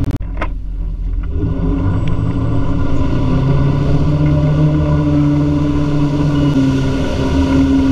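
Wake boat's inboard engine running under load, its pitch stepping up about three seconds in and again near the end as it pulls the surfer up out of the water, with a couple of short knocks at the start.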